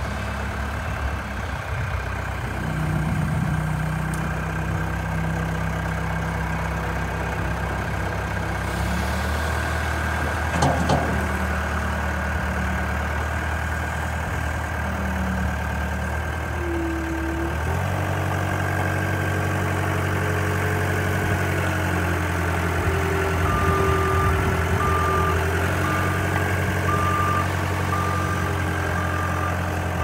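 Caterpillar 262B skid steer's diesel engine running steadily as the machine is driven, its pitch stepping up about a third of the way in and again around the middle. Near the end a short beep repeats about once a second.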